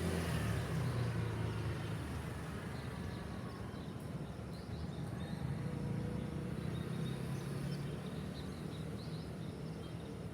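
City ambience: a steady low rumble of distant traffic, with faint, scattered bird chirps from a few seconds in.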